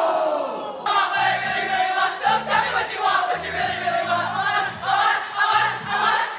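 A long drawn-out shout at the start. Then, after an abrupt change about a second in, a group of girls sing together loudly over music with a steady bass line.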